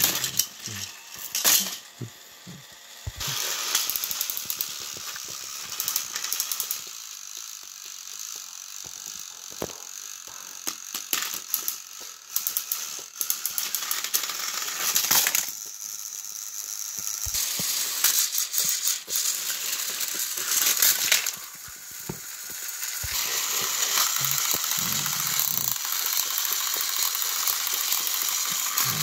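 Battery-powered plastic toy train engines straining against each other on plastic track: the small motors whir and the gears rattle, with scattered clicks and knocks of plastic parts.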